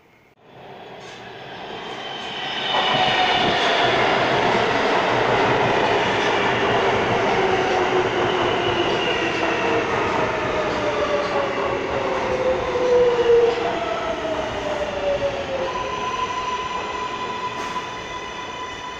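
New York City Subway L train arriving and braking to a stop, its traction-motor whine falling in pitch as it slows. Once it has stopped, a steady high tone holds.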